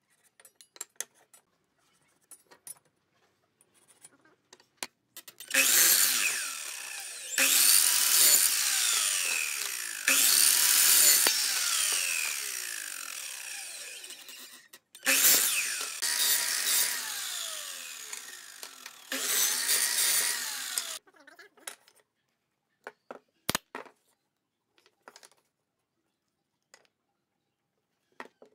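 Electric miter saw started and cut through a pine board several times in a row between about 5 and 21 seconds in, its blade whine falling away as the motor winds down after each cut. Light taps and wood-handling clicks come before and after, with one sharp knock a little after the cutting stops.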